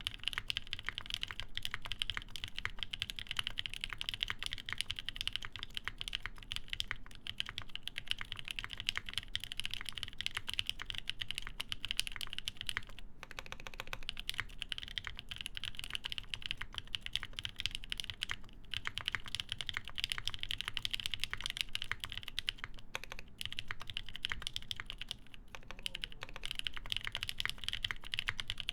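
Continuous typing on a plateless, PCB-mounted Ion Jubi custom mechanical keyboard with NK Nolives switches lubed with Krytox 205g0 and GMK Dolch keycaps: a dense run of keystrokes with a few short pauses.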